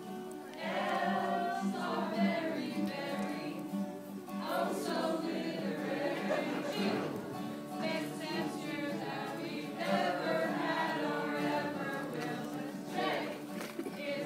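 A group of voices singing together to two acoustic guitars.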